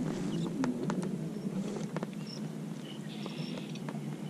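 Small waves lapping against an inflatable raft, with scattered light clicks and knocks from the spinning reel being cranked on a slow retrieve.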